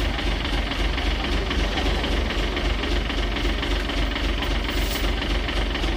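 Heavy truck's diesel engine idling, a steady low throb.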